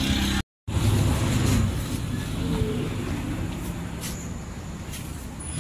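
Steady low rumble of a motor vehicle engine running, with the sound cutting out completely for a moment about half a second in.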